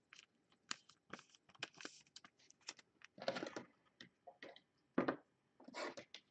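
Faint, irregular plastic crinkles, rustles and small clicks of a trading card being slid into a clear plastic sleeve and handled, with a busier patch about halfway through and a couple of sharper clicks near the end.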